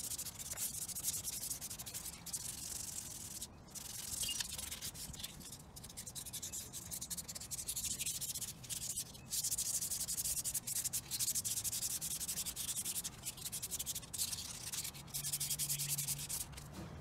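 Hand wet-sanding a carbon fiber shift surround with 800-grit sandpaper: a hissing scrape in runs of quick back-and-forth strokes, with brief pauses.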